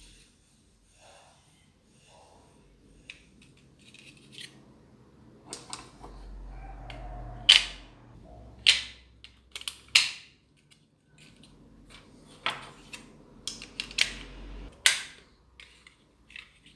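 Irregular sharp clicks and snaps of small hard objects being handled, several of them loud, with a faint low hum underneath in two stretches.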